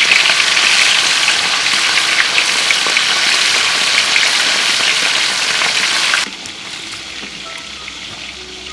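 Small snake fish deep-frying in hot oil in a wok: a loud, steady sizzle with scattered crackles and pops. It cuts off suddenly about six seconds in, leaving a much quieter background.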